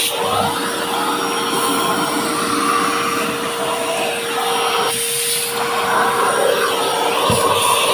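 Vacuum cleaner running, with a steady motor whine under a loud rushing of air. The rush changes character a few times as the suction shifts.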